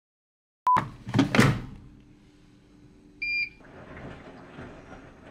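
A short beep and a couple of brief swishing noises about a second in, then a short high electronic beep just after three seconds, followed by the steady running noise of a front-loading washing machine.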